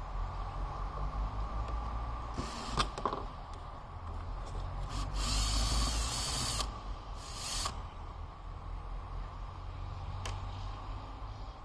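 Cordless screw gun running in short spurts to back out the screws holding a leaf blower's starter recoil cover: a brief run, a longer whining run midway, then another short one.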